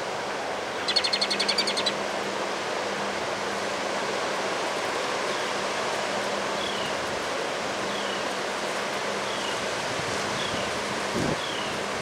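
Strong windstorm wind rushing through bare trees, a steady noisy rush. A bird gives a rapid high trill about a second in, the loudest sound, and short high chirps that fall in pitch repeat every second or so.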